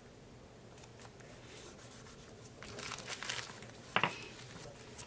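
Printed paper and cardstock being handled, with rustling crinkles in the second half and a sharp tap or click about four seconds in.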